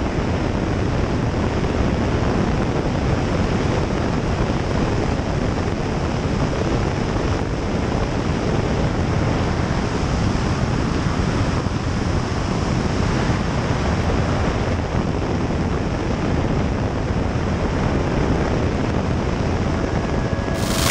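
Steady rushing roar of slipstream and engine noise in the cockpit of a Bellanca 8KCAB Super Decathlon in inverted flight, dominated by wind buffeting the microphone.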